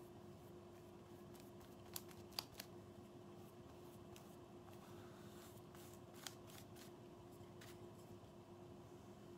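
Near silence with faint strokes of a paintbrush laying acrylic paint on a canvas board, and a few light ticks about two seconds in and once more around six seconds, over a low steady hum.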